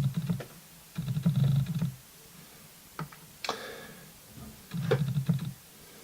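Autofocus motor of a Sigma 18-200 camera lens chattering in short bursts of rapid clicking and buzzing as it hunts for focus. There is a single sharp click about halfway through.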